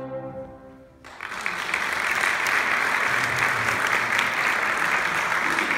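The last chord of violin and piano fades away, and about a second in the audience breaks into steady applause.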